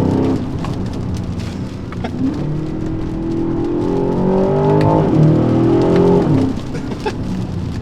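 Aston Martin DBX707's 4.0-litre twin-turbo AMG V8 under way. It drops in pitch near the start, then climbs steadily under acceleration, dips briefly about five seconds in, climbs again and falls away as the throttle comes off.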